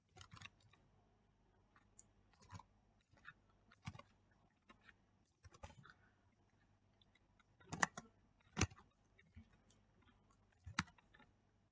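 Computer keyboard typing: sparse, faint keystroke clicks, with a few louder ones about eight seconds in.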